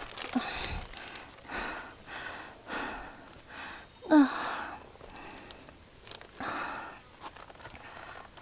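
A woman breathing hard in quick, heavy breaths while scrambling up a steep, slippery rock: the effort of the climb. About four seconds in comes one louder voiced out-breath with a falling pitch, a grunt of effort. Light knocks and scuffs of the hand-held camera run through it.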